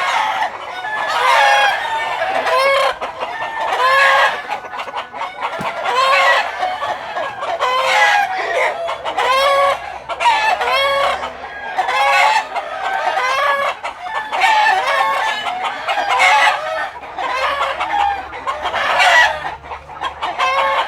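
Several gamefowl chickens crowing and clucking over one another, a new call every second or so with no break.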